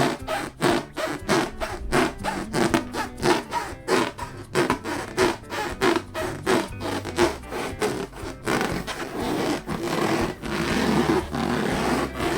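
Hands rubbing and squeezing a latex balloon in quick repeated strokes, about three to four a second, turning into denser continuous rubbing for the last few seconds, over background music.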